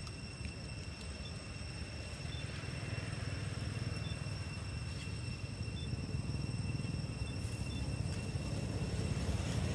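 Low rumble of a road vehicle approaching, growing louder toward the end, over a steady high-pitched whine.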